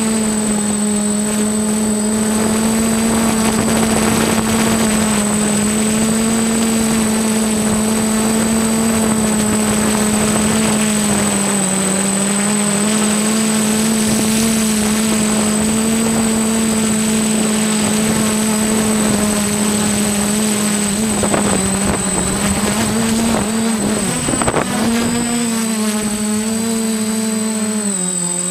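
Electric motors and propellers of a TBS FPV quadcopter, heard from the camera on board: a steady, loud propeller hum with wind buffeting. The pitch wavers about three-quarters of the way in and dips near the end as the quad comes down low.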